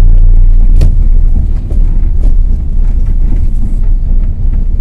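Tata Prima truck's diesel engine and drivetrain running with a loud, steady low rumble, heard from inside the cab while driving slowly. A single sharp click sounds about a second in.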